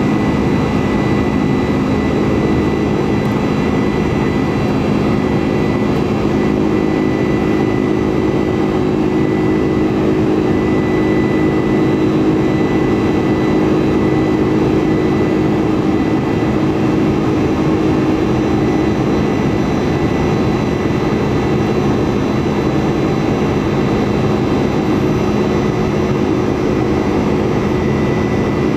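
Steady cabin noise of a Boeing 747-400 airliner under way: an even rush of jet engine and airflow noise with a few constant low hums and a faint high whine, unchanging throughout.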